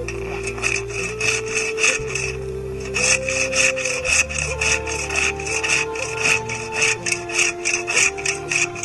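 Silky pruning saw cutting through a downed tree branch in quick, regular back-and-forth strokes, louder from about three seconds in, over background music.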